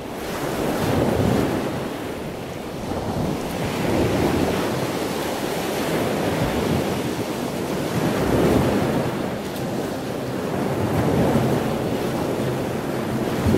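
Small waves washing in and breaking on a pebbly beach, the surf swelling and ebbing every three or four seconds.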